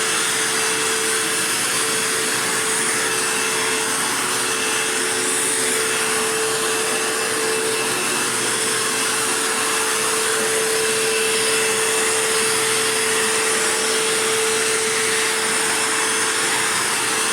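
Dirt Devil Jaguar Feather Lite bagged vacuum cleaner running steadily: a constant motor whine over the rush of air.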